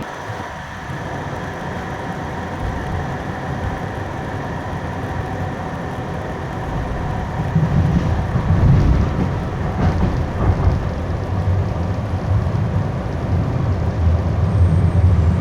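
Light rail train running, heard from inside the car: a steady rumble of wheels on track with a faint steady motor whine, growing louder and deeper about seven and a half seconds in.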